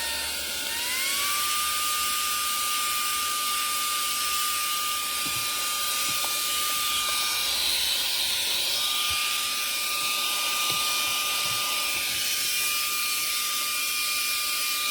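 Cordless handheld car vacuum running. Its motor whine rises slightly and settles about a second in, then holds steady over a steady rush of air.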